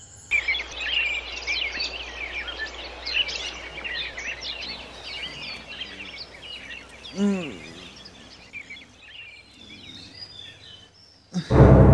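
Birds chirping, many short overlapping calls, over a low steady hum, with one brief sliding call about seven seconds in. Near the end, loud music starts suddenly.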